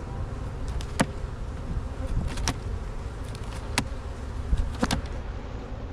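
Honey bees buzzing in a steady low hum around an opened hive, with several sharp clicks about a second apart.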